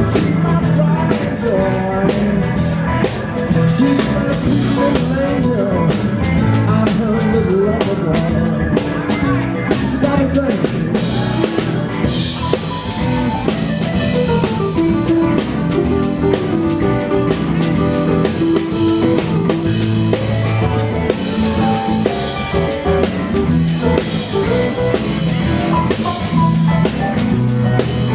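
Live band playing: drum kit, electric bass, electric guitar and keyboards.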